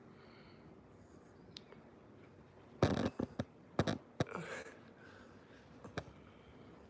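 Handling noise on the recording phone: a short cluster of knocks and rubbing about three seconds in, then a single click near six seconds, over quiet room tone.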